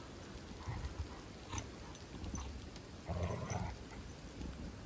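A dog making a short low sound about three seconds in, with a few faint clicks around it.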